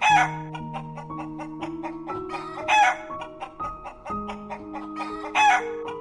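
Three short, loud chicken calls, about two and a half seconds apart, over background music with held low notes.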